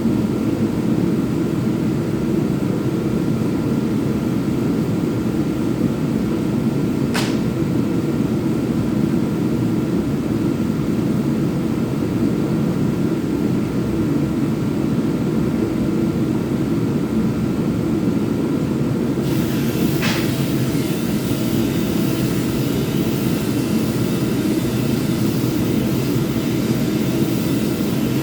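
Power sander running steadily with a deep, even drone. Two sharp clicks come about a quarter and about two-thirds of the way through, and after the second a higher hiss joins the drone.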